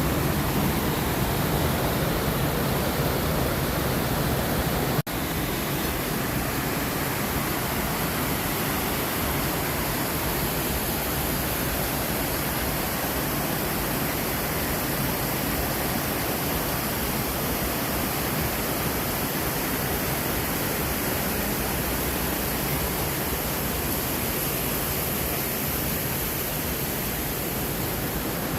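Waterfall rushing: a steady, even roar of falling water, broken by a brief dropout about five seconds in, after which it is slightly quieter.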